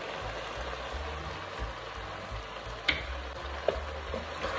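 Potatoes and masala sizzling steadily in oil in a pot under a fresh heap of fenugreek leaves. A sharp click about three seconds in, then a wooden spatula starts scraping and stirring near the end.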